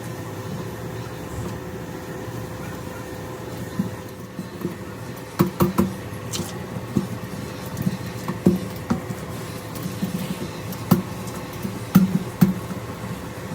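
A steady mechanical hum. From about four seconds in, irregular sharp clicks and knocks sound, like metal tools or parts being handled.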